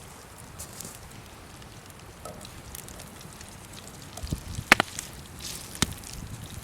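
Campfire crackling, with a few sharp pops; the loudest come about four and a half seconds in and again near six seconds.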